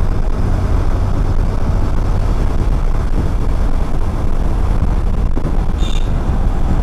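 Steady wind buffeting on the camera mic and road noise from a motorcycle ride in traffic, strongest in the low end. A short high chirp about six seconds in.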